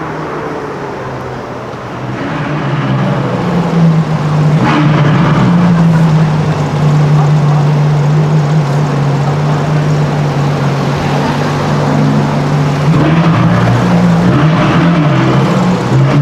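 Supercar engine running at a steady low speed, getting louder about two seconds in, its pitch wavering near the end.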